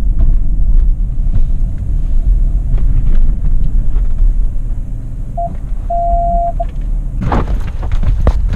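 A loud low rumble of rubbing and handling noise from a camera strapped to a dog's chest as the dog moves. Two short beeps sound a little past halfway, and a burst of scuffing and rustling comes near the end.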